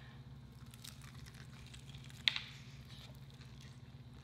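One sharp crunch about halfway through as a bite is taken into crispy fried chicken coated in hot honey sauce, with faint small mouth clicks over a steady low hum.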